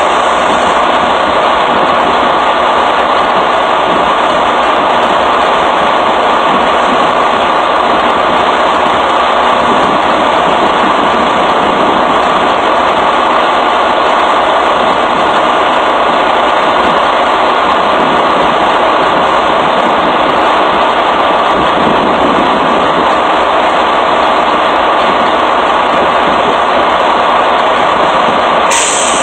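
Semi-truck engine idling, a loud, steady, unchanging running noise.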